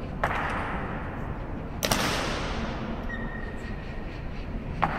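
Honor guard's boots striking the marble floor in a slow ceremonial march: three sharp stomps spaced over a second apart, each echoing through the stone hall.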